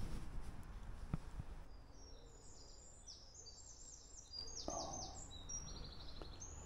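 A small songbird singing a run of quick, high, short notes with a brief trill, over a faint steady outdoor background. A short soft low noise comes about four and a half seconds in.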